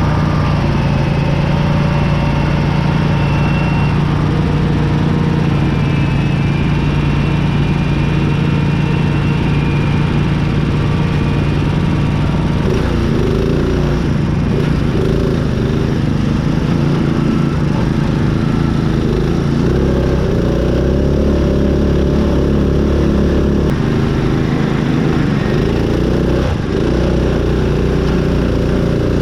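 Small riding-mower engine running steadily, then its speed shifts up and down several times in the second half as it is worked.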